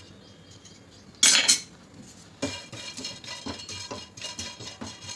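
Dried cinnamon bark pieces rattling into a dry non-stick kadai about a second in, then a wooden spatula scraping and stirring them around the pan in quick, uneven strokes as they roast.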